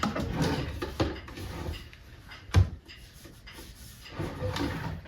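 Wooden cabinet work being handled: rubbing and scraping on wood with light knocks, and one sharp knock about two and a half seconds in.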